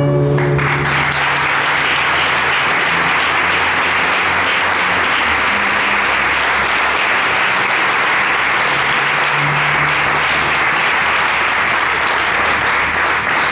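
An audience applauding steadily after a song. The final chord of an acoustic guitar dies away in the first half-second.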